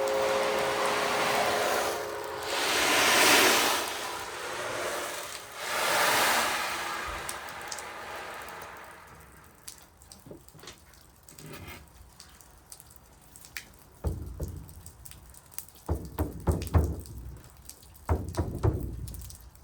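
Sound-bath instruments: ringing chime tones fading away just after the start, then two slow swells of rain-like rushing, then scattered clicks and, from about two-thirds of the way in, low rumbling knocks.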